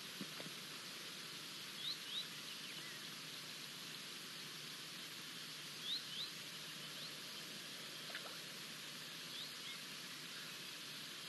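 Steady outdoor hiss with a bird's short rising chirps, given in quick pairs several times a few seconds apart.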